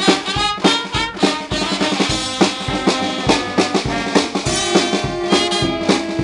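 Street brass band playing a lively tune: trumpets, trombones, saxophones, tubas and a sousaphone over a steady beat from bass drum, snare drum and cymbals.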